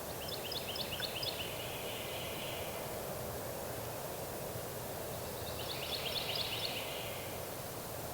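Wild turkey gobbling twice at a distance, each gobble a quick rattling run of notes about a second long, one near the start and one about six seconds in, over steady wind noise.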